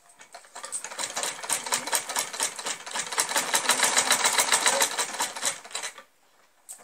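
Sewing machine stitching: a rapid, even run of needle strokes that starts just after the beginning and stops about six seconds in.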